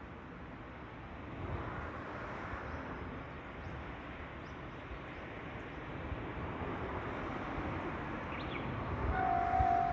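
A steady outdoor rushing noise that slowly grows louder. About nine seconds in, a level-crossing warning bell starts ringing with a steady, high electronic tone.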